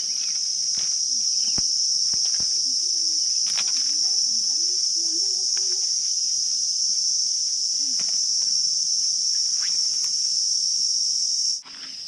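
Insects droning in one steady high-pitched buzz that cuts off suddenly near the end, with a few faint clicks underneath.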